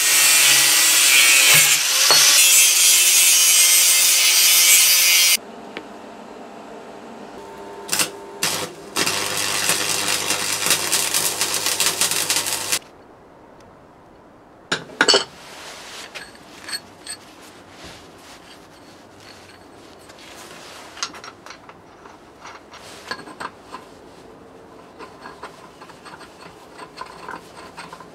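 A power tool running in two loud spells, one for about five seconds at the start and another of about four seconds a little later, followed by scattered light clicks and clinks of tools and parts.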